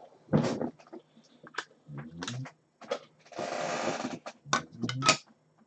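Handling noise of objects being picked up and set down: irregular clicks and knocks, with a brief scraping, rustling rush about three and a half seconds in.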